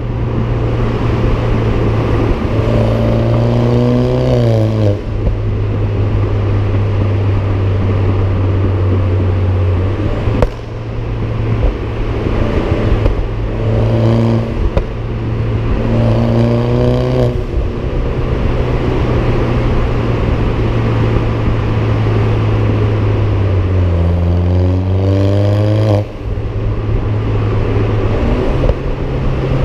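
Exhaust note of a BMW F20 116i with a Supersprint aftermarket exhaust, heard close at the rear bumper. It runs as a steady low drone under road noise, broken four times by a rising acceleration that cuts off suddenly, as on a lift-off or gear change.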